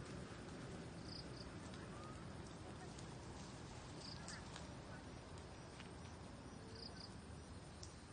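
Faint outdoor forest ambience with a steady low rumble and scattered small clicks. A brief high double chirp repeats three times, about three seconds apart.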